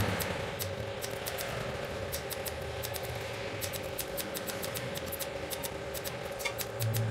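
Pulse repair welder firing short arc pulses as filler wire is tacked into a thin metal seam, a quick uneven series of sharp clicks over a steady hum.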